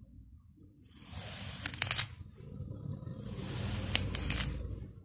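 A knife slicing through a packed block of kinetic sand, twice: each cut is a gritty, crunchy hiss of a second or two that ends in a few crisp crackles as the blade finishes the cut.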